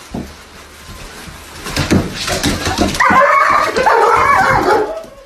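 A dog whining and yipping, with long pitched whines from about three seconds in, after a few low knocks.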